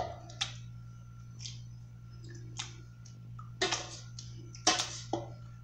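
Metal spoon clinking and scraping against a stainless steel pot while mashing cooked red beans into a paste for refried beans: irregular clicks, louder and bunched together in the second half, over a steady low hum.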